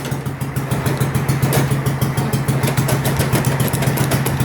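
Small engine of a mud mower (a lawn mower built for mud running) idling steadily, with an even, rapid pulse.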